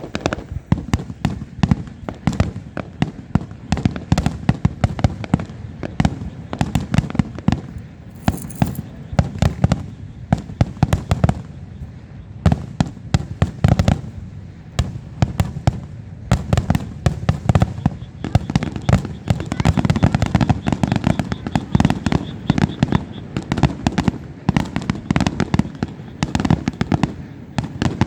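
Fireworks finale barrage: many aerial shells bursting in quick succession, sharp bangs packed close together over a continuous low rumble.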